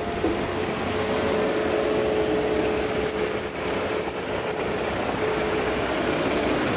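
A heavy vehicle running close by with a steady hum, over a wash of street noise.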